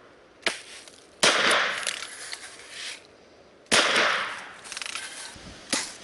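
Gunshots: a sharp crack about half a second in, two loud shots at about one and a quarter and three and three-quarter seconds that each trail off over a second, and a shorter crack near the end.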